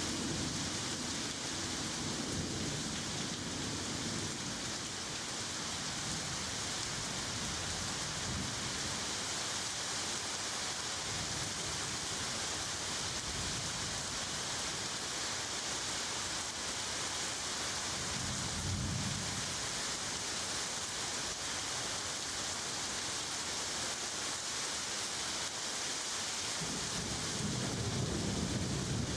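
Steady hiss like heavy rain, with a low rumble swelling up a few times: near the start, about midway and near the end.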